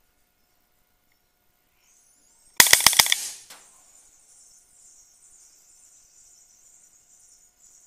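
Air Arms LCS SK-19 .22 PCP air rifle firing a rapid full-auto burst of about five shots in roughly half a second, with a short ringing tail.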